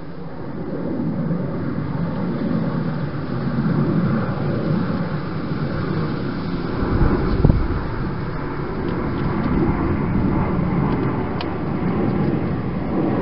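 A hedgehog feeding inside a clear plastic feeding box: an irregular rustling and chewing noise, with one louder bump about seven seconds in.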